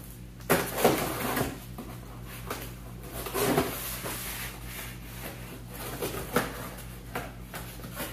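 Cardboard box being opened and handled by hand: irregular scraping and rustling of cardboard, with a few louder knocks about a second in, midway and near the end.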